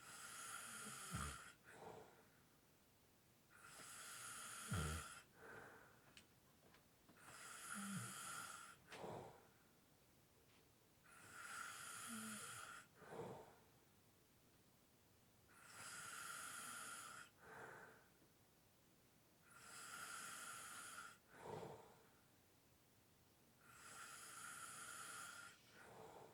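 A person snoring lightly with slow, heavy breathing, seven breaths about four seconds apart. Each breath is an airy hiss lasting a second or so, ending in a short low snore rattle, then followed by a brief puff of breath.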